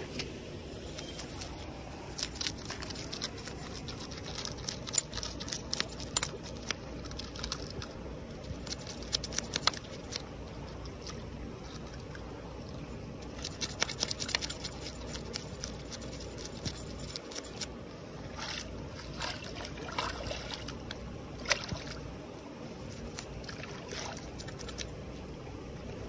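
Cutlass blade scraping a fish on a rock at the stream's edge: irregular sharp scrapes and taps, over the steady wash of shallow running water with light splashing.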